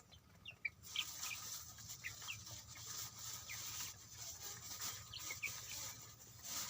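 Young chicks peeping: scattered short, high cheeps, a few each second, over a faint steady hiss.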